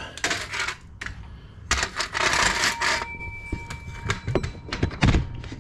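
Handling noise from a camera being carried and repositioned: rustling, a longer scraping burst about two seconds in, then a run of small clicks and knocks, the loudest near the end.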